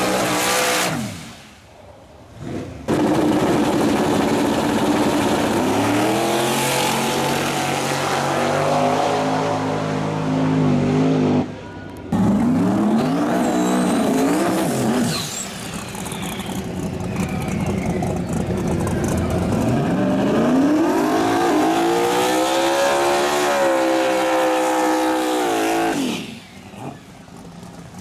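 No-prep drag race cars revving at the starting line and launching, the engine note climbing steeply as each car accelerates away. There are several separate runs with abrupt cuts between them.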